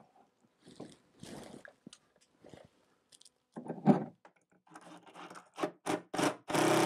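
Light scraping and handling of a wooden shelf support, then a cordless impact driver driving a screw through it into the cabinet side in a series of short bursts. The motor whine starts about four seconds in, and the bursts come closer together and run longer toward the end.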